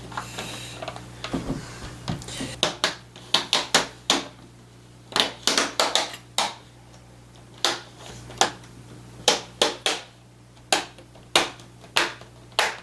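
Irregular sharp plastic clicks and snaps, a few a second, from the plastic parts of a Dell Inspiron 7559 laptop being handled and pressed into place during reassembly.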